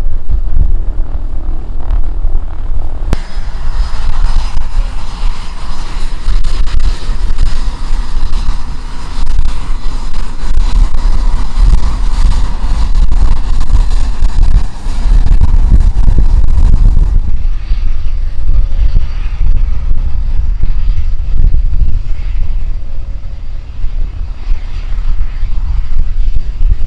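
Airplane engine noise: a steady low rumble throughout, joined about three seconds in by a louder rushing sound with a faint high whine, which fades after about seventeen seconds.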